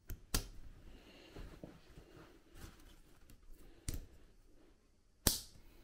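Tent pole clips on a Tarptent Scarp 1 being snapped onto the poles by hand: three sharp clicks, the last the loudest, over faint rustling of the tent fabric.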